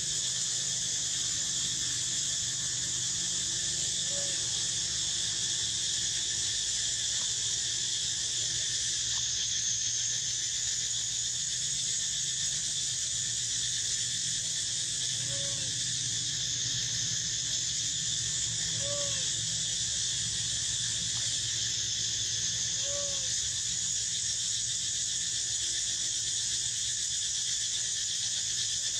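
Steady, unbroken chorus of insects buzzing, with a low hum beneath it. A few faint, short squeaks come through it, one about four seconds in and three more in the second half.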